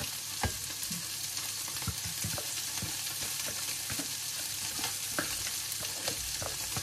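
Silicone spatula scraping and tapping mashed carrot out of a plastic food-processor bowl into a glass bowl: short scrapes and knocks at irregular intervals over a steady high hiss.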